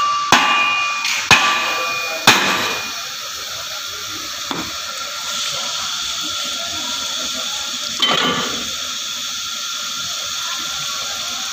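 Hammer blows on a tractor's rear axle to drive the axle shaft out of its housing: three metallic strikes about a second apart in the first few seconds, each ringing briefly. After the blows comes a steady hiss, with one knock about eight seconds in.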